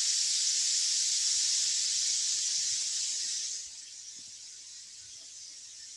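Steady high hiss of recording background noise, dropping to a fainter hiss a little past halfway.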